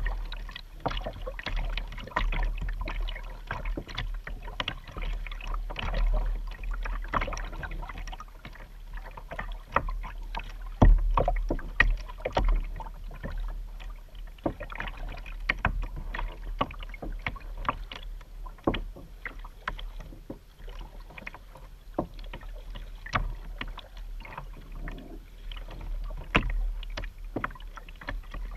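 Double-bladed kayak paddle dipping and splashing stroke after stroke, with water dripping off the blades and lapping against the plastic hull of a Vibe Yellowfin 100 sit-on-top kayak. The splashes are irregular, over a steady low rumble, and the sharpest one comes about eleven seconds in.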